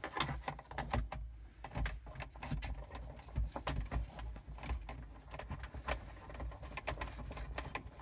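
Irregular clicks, taps and light rattles of parts and wiring being handled and fitted inside a refrigerator's freezer compartment, over a steady low rumble.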